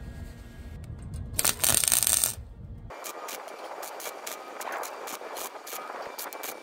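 Wire-feed welder arc crackling and spitting in short runs as a patch panel is welded onto the truck's cab corner, starting about three seconds in. Before that comes a loud hiss lasting about a second.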